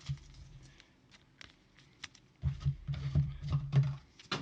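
Trading cards being handled on a table, heard as a run of small clicks and taps. In the second half there is a low rubbing, thudding stretch lasting about a second and a half, and a sharper click comes near the end.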